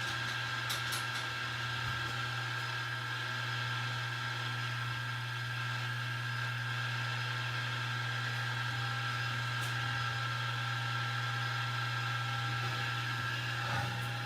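Milling machine spindle running steadily in high range at about 1200 RPM as a number 29 drill bit drills a hole in quarter-inch hot-rolled steel plate, a steady hum with a few faint ticks about a second in.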